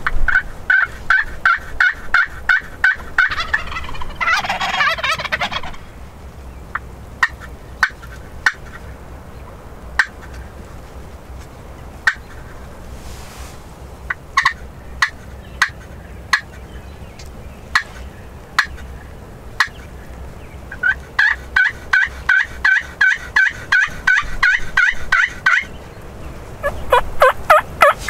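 Wild turkeys calling: a long run of rapid, evenly spaced calls, a rattling gobble about four seconds in, scattered single sharp notes, then another rapid run of calls about three-quarters of the way through.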